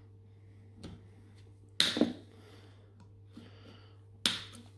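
Cutters nipping through the corroded nickel strip that joins the cells to a lithium-ion battery's circuit board: two sharp snaps about two and a half seconds apart, with a faint click before the first.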